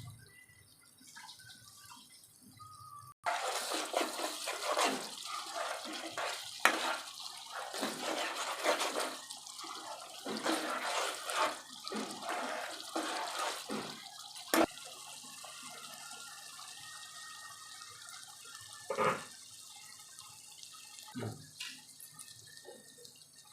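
Water splashing and dripping in quick, irregular bursts, starting abruptly about three seconds in and thinning out after about fifteen seconds, with a few single splashes near the end: boiled vegetables being squeezed by hand to wring out their water.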